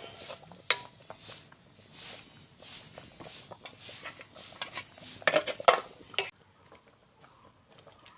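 Metal kitchen utensils clinking and scraping against a pot or dish in a fairly regular rhythm, stopping suddenly about six seconds in.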